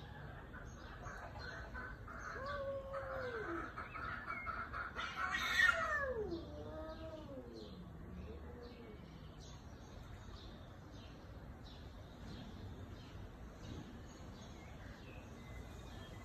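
A domestic cat meowing: several drawn-out meows that rise and fall in pitch in the first half, with a brief loud noisy burst about five and a half seconds in. Faint repeated bird chirps run underneath throughout.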